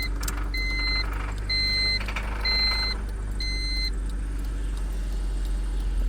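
The Honda Civic's warning chime beeps about once a second and stops about four seconds in, over a steady low hum from the car.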